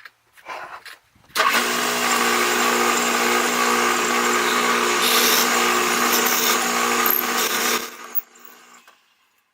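Electric drill running steadily for about six seconds, boring a hole into a wooden pen blank, then winding down as the trigger is released.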